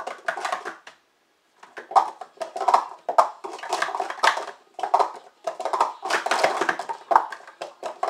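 Hard plastic sport-stacking cups clattering rapidly as they are upstacked and downstacked on a stacking mat during a doubles run. The clacks are dense and irregular, with a brief pause about a second in.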